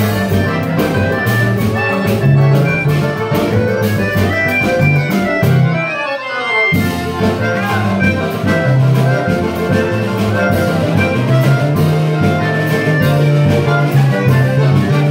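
A live choro trio: melodica (keyboard harmonica) playing the melody over cavaquinho and acoustic guitar. About six seconds in, a falling run leads into a brief break before the band comes back in.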